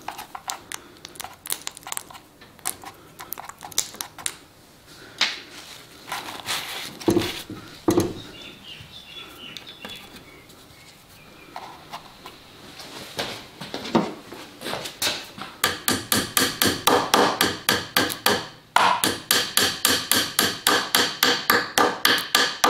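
A claw hammer driving wooden dowels into the dowel holes of a clamped hardwood drawer joint. Scattered knocks and clicks at first, then about two-thirds of the way in a fast, even run of taps, about four a second, with one short pause.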